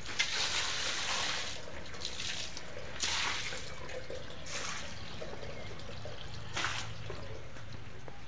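Water splashing onto packed earth in several separate splashes, the soil being wetted so it compacts further before the concrete floor is poured.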